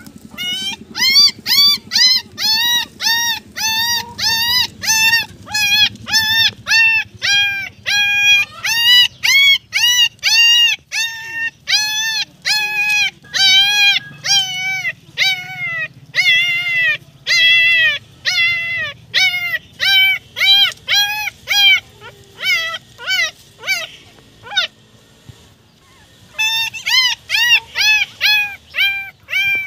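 Young puppy crying: high, arched whimpering cries repeated about twice a second, stopping for a couple of seconds near the end, then starting again.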